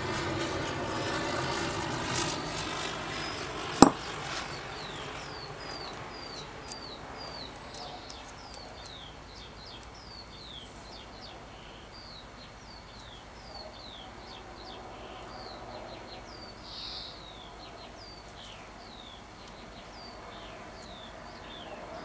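A small bird chirping over and over, a quick falling note about twice a second. A low engine drone fades away over the first few seconds, and a single sharp click sounds about four seconds in.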